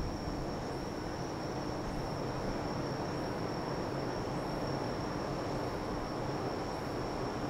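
Insects, crickets, trilling in one steady high unbroken tone over an even low background hum.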